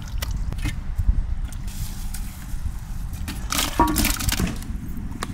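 Handfuls of green chillies, tomatoes, mint leaves and onions dropped into a pot of water with goat trotters, plopping and splashing, with the biggest splash about four seconds in. A low steady rumble sits underneath.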